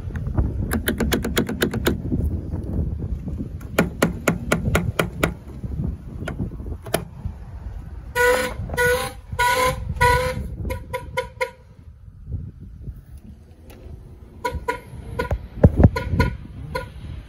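2001 Ford Expedition's horn honking in rapid pulses, about three a second, as the anti-theft alarm is set off: one run about eight seconds in, fading out after about three seconds, and another starting a few seconds later. Before the honking there are two short bursts of fast clicking.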